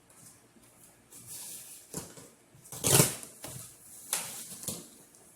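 Cardboard box being opened and its contents handled: irregular rustling, scraping and a few knocks, the loudest about three seconds in.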